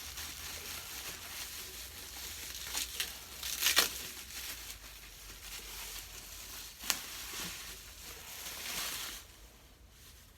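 Packaging rustling and crinkling as a boxed toy is unpacked, with a few sharp crackles, the loudest a cluster about four seconds in and another near seven seconds; the rustling stops about nine seconds in.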